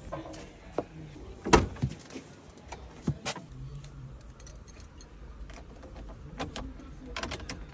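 Several separate sharp clicks and knocks, the loudest about a second and a half in, over a low steady hum.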